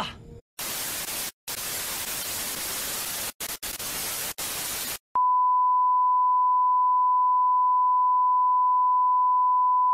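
Television static hiss, broken by a few brief dropouts, then about five seconds in it gives way to the steady single-pitch test tone that goes with a colour-bar test card.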